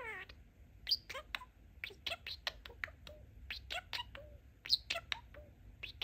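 Pet budgerigar chattering: a quick run of short chirps, clicks and brief warbling notes, the mumbled babble of a talking budgie.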